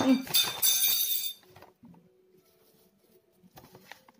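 Plastic flour bag crinkling as wheat flour is tipped out of it into a glass bowl, loud for the first second and a half, then stopping; after that only a few faint clinks.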